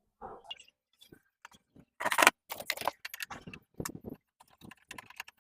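Handling noise of an amplifier's panel being opened: a run of metallic clicks, scrapes and rattles, with the loudest clatter about two seconds in.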